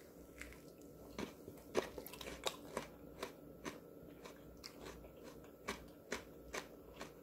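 Crisp crunching of someone chewing fresh, unsalted cucumber and onion slices dressed as a spicy Korean cucumber salad (oi-muchim), about three sharp crunches a second, starting about a second in.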